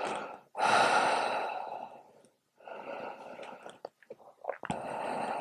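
A woman's slow, audible breathing through the nose and mouth while holding a yoga pose: about three long, breathy swells, the loudest starting about half a second in.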